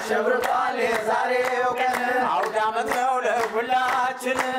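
A group of men singing together, voices wavering with vibrato, over a steady beat of sharp handclaps.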